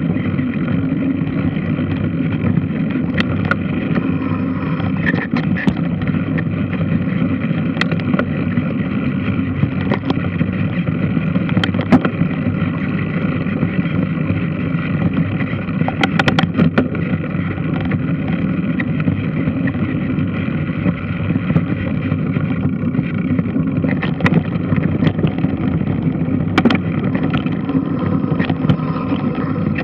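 Large washing machine running: a steady mechanical drone, with irregular sharp clicks and knocks from the machine.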